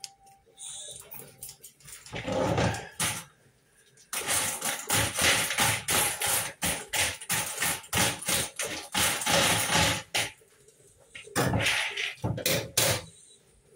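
A red-handled kitchen utensil worked rapidly in a plastic bowl, many quick scraping, clicking strokes in a steady run from about four seconds in, with shorter bursts before and after.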